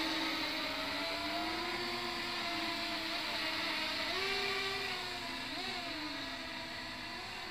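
Electric motors and propellers of a scratch-built foam RC flying-saucer multirotor whirring in flight. The pitch shifts up and down with the throttle and wavers briefly a little past the middle, while the sound fades slightly toward the end.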